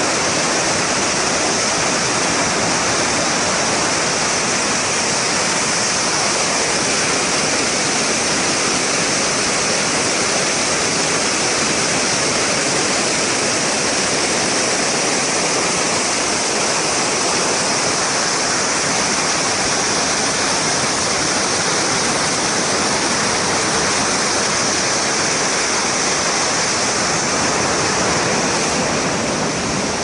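Sogi Falls running at heavy flow: a loud, steady rush of white water crashing through a rocky gorge, easing slightly near the end.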